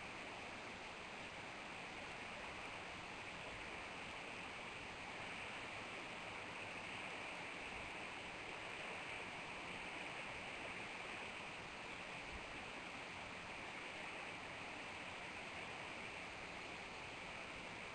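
Steady, even hiss with no distinct events, strongest in a high band.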